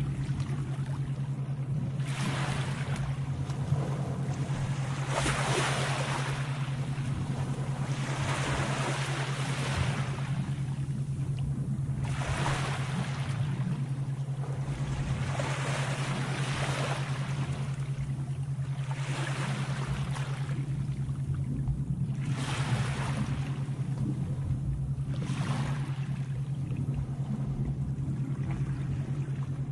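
Sea waves washing in, one swell of surf about every three seconds, over a steady low hum.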